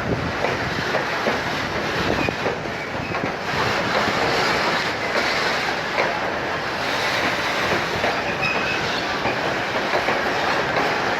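Train cars rolling past, their wheels clicking over rail joints amid a steady rumble, with a brief thin wheel squeal about eight seconds in.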